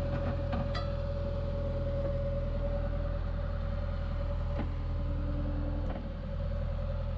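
Excavator diesel engine running steadily, picked up by a camera mounted on the moving bucket, with a steady whine over it and a few light clicks and rattles.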